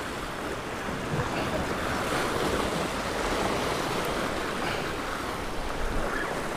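Ocean surf washing steadily over and around the boulders of a rock jetty, a continuous rushing wash of water.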